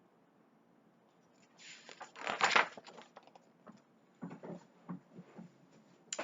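A picture book being handled and a page turned: a paper rustle that swells to a loud sweep about two seconds in, followed by several short rustles and soft knocks.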